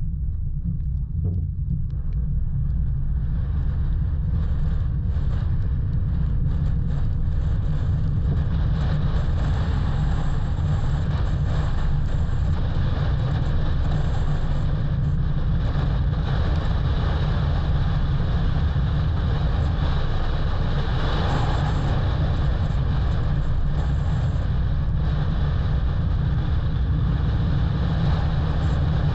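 Steady low wind rumble on the camera microphone, muffled because the camera is soaked with rain.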